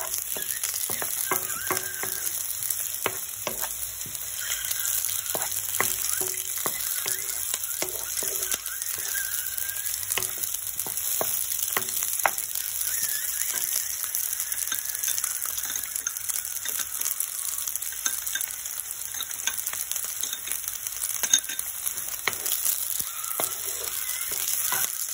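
Chopped onions sizzling in oil in a nonstick pan, with a wooden spoon scraping and tapping against the pan as peeled boiled eggs are stirred and rolled through them.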